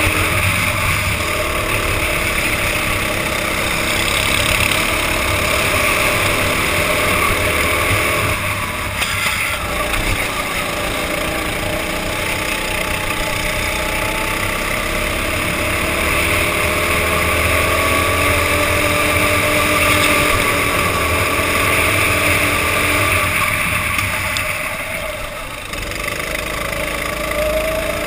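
Go-kart engine at racing speed from the driver's seat, its note rising and falling with the throttle. Twice, about nine seconds in and again near the end, it drops away briefly as the driver lifts off before picking up again.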